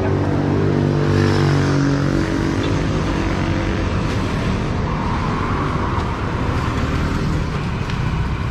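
Passing road traffic. A vehicle engine drones by in the first two seconds, its pitch dropping as it passes, followed by steady traffic noise from more passing vehicles.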